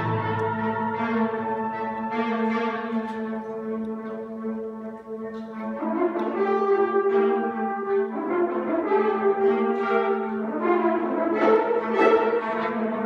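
Concert band playing slow, sustained chords, with brass instruments to the fore over one held low note. New chords come in about six, eight and ten and a half seconds in.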